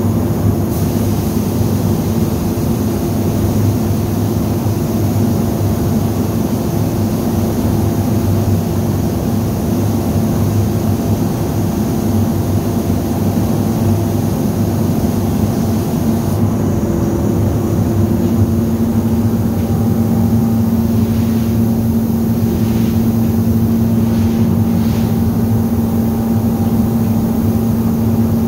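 Spray-finishing equipment running with a steady hum, and the air hiss of a paint spray gun spraying finish, which begins just under a second in and stops about 16 seconds in. The hum carries on afterwards, with a few faint knocks near the end.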